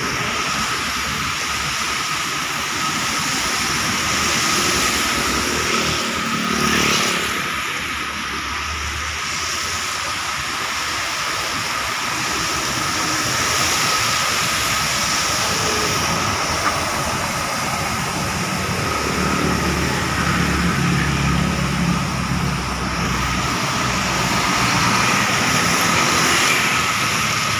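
Road traffic on a rain-wet highway: car, motorbike and bus engines with tyre hiss on the wet road surface, swelling in loudness several times as vehicles pass close by.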